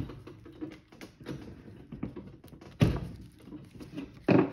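Small clicks and knocks of a greased brake caliper slider pin, the one with a rubber O-ring that is stiff to push in, being worked into its bore in the steel caliper bracket. There is a louder thump about three seconds in and another near the end.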